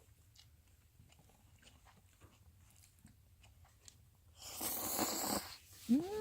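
Someone eating ramen: faint chewing and clicks, then a loud slurp of noodles about four and a half seconds in. Near the end, a short pitched sound rises and then falls.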